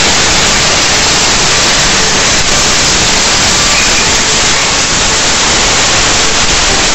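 Loud, steady hiss of a pressurised cleaning jet sprayed through a thin nozzle tube into the open crankcase of a Bajaj motorcycle engine.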